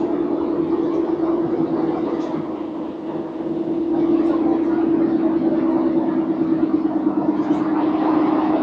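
Class 150 diesel multiple unit under way: a steady engine and transmission drone over wheel-on-rail rumble, getting louder about four seconds in.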